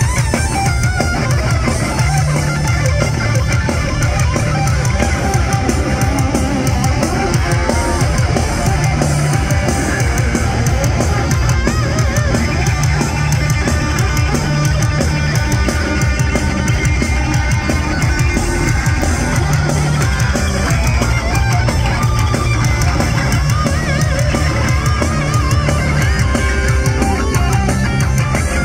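Heavy metal band playing live: loud electric guitars over a drum kit, without a break.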